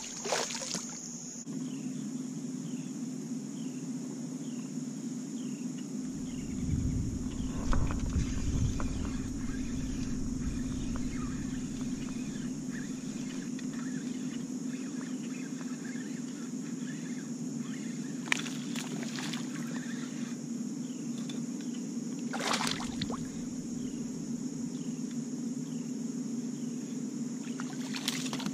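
Steady electric hum of a kayak's bow-mounted trolling motor running, with a low rumble for a few seconds and a few sharp clicks from the rod and reel. A steady insect buzz runs under it.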